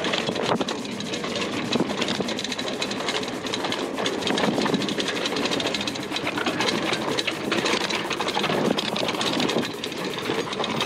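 Hardtail mountain bike rattling as it rolls over a rough, dry dirt trail: a fast, unbroken clatter of many small knocks.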